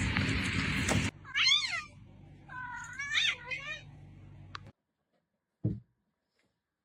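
A cat meowing twice, each call sliding up and then down in pitch. Before the calls, a loud rushing noise cuts off about a second in, and a short low thud comes near the end.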